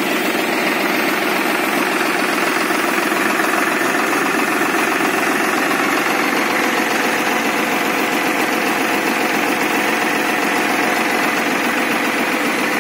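Tractor diesel engine running steadily, powering a tractor-driven paddy cleaner, its machinery noise mixed in with the engine.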